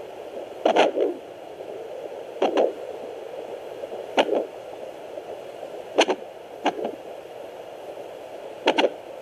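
Fetal hiccups picked up through a Sonoline B handheld fetal doppler at 28 weeks: short, sharp thumps about every two seconds over the doppler's steady hiss.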